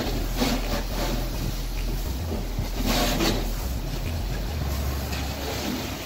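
Pressure washer running, its water jet spraying over a car's bodywork: a steady low hum under a rushing spray, with a brief louder burst about three seconds in.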